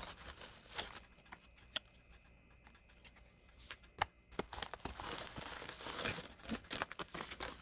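Packaging being opened by hand: crinkling and tearing with scattered sharp clicks, busiest in the second half.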